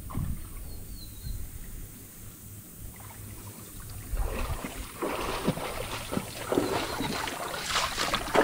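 River water splashing and sloshing as someone moves through it, quiet at first and growing busier and louder from about four seconds in.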